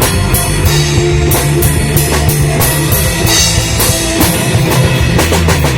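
Loud rock music with a driving drum kit and guitar, the drums striking about four to five times a second, with a quick run of strokes near the end.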